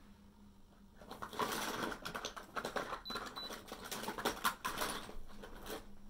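A comb rasping through long hair in rapid, scratchy strokes, starting about a second in and stopping just before the end.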